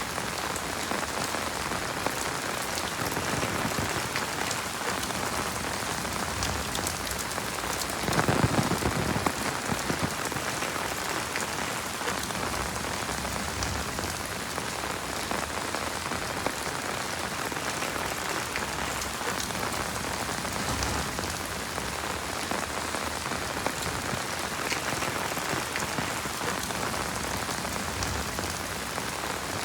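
Heavy rain falling steadily, with a brief louder rush about eight seconds in.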